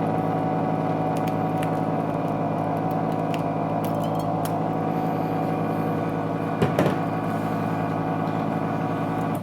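Heated vacuum-suction LCD separator machine running with a steady electric hum, its vacuum pump holding the tablet down, with one brief knock about two-thirds of the way in.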